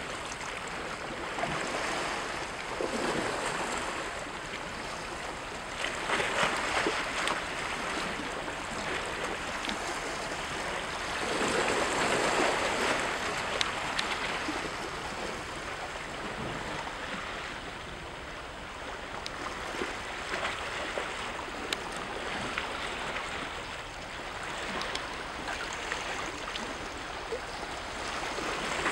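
Small waves washing and splashing against shoreline rocks, the sound swelling and fading every few seconds.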